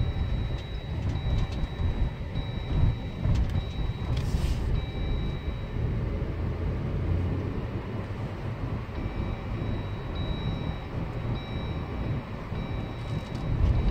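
Low road and engine rumble inside the cabin of a car driving slowly in traffic, with a faint high tone that comes and goes and a short hiss about four seconds in.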